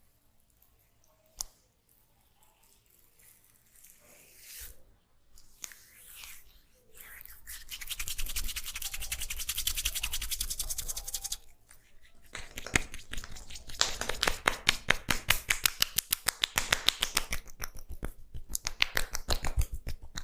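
Hands massaging an oiled head: a burst of fast, vigorous rubbing about eight seconds in, then a longer run of quick rhythmic tapping strikes from about twelve seconds in.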